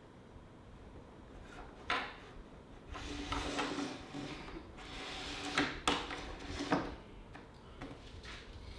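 Water in a plastic pot fizzing and hissing as it starts to boil around a homemade stinger immersion heater, with a few light clicks and knocks.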